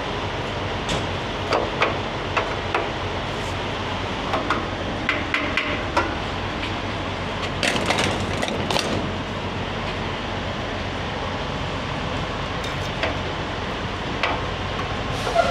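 Diesel being pumped into a truck's fuel tank at a fuel island: a steady rushing hum, with scattered light clicks and knocks from handling the nozzle and tank.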